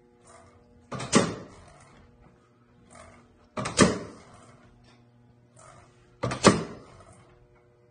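Pneumatic drive of a pendulum generator cycling: three loud pulses about two and a half seconds apart, each a sharp double clack followed by a trailing hiss of air as the solenoid valve fires the cylinder. Fainter short knocks fall between the pulses, over a steady low hum.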